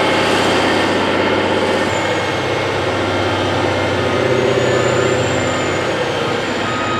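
Heavy mining machinery at work: large diesel engines running steadily under load. Near the end a reversing alarm starts beeping.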